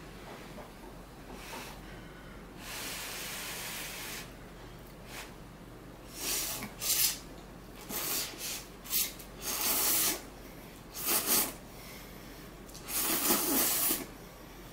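A person slurping instant ramen noodles off chopsticks: a softer, longer draw about three seconds in, then several loud slurps from about six seconds on.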